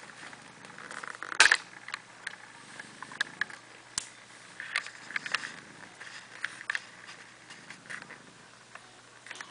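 Small scratches, scuffs and clicks of two-week-old kittens' claws catching in a terry-cloth towel as they crawl about, with a louder knock about a second and a half in.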